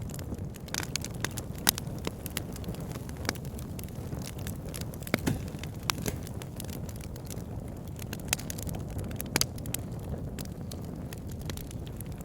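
Campfire burning, with a steady low rumble of flames and irregular sharp crackles and pops of burning wood, a few louder pops among them.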